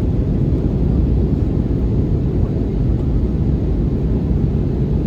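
Steady, loud cabin noise of an Airbus A320neo airliner in flight: a low, even roar of airflow and engine noise, heard from inside the passenger cabin.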